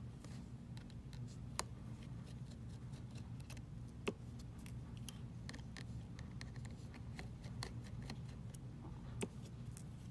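Small, irregular clicks and ticks of a precision screwdriver and metal tools working the tiny screws out of the iPhone X's connector cover plate, with a few sharper clicks, over a steady low hum.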